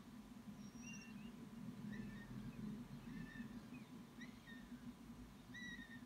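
Faint bird calls: short, thin, high chirps, about eight in six seconds, each slurring slightly downward, over a low steady hum.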